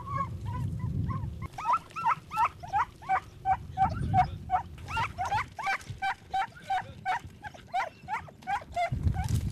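Podenco Canario hunting dog yelping on the chase: a rapid run of short, high-pitched barks, about three a second, beginning about a second and a half in and stopping just before the end, over a low rumble.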